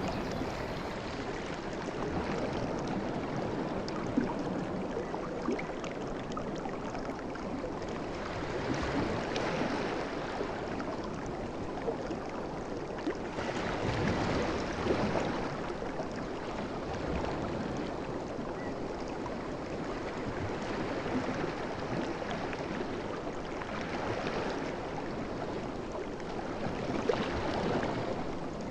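Sea waves washing in and drawing back, the rush of water swelling and easing every few seconds with fine crackling.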